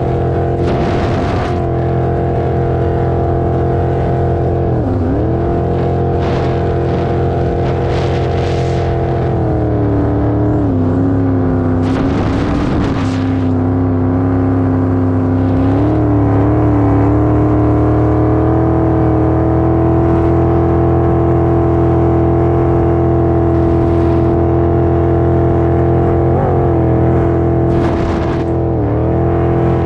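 Jet boat engine running at cruising speed through stainless headers, a steady drone whose pitch dips briefly about five seconds in, settles lower for a few seconds around the middle, then comes back up, with two more short dips near the end. Brief surges of rushing noise come and go over it.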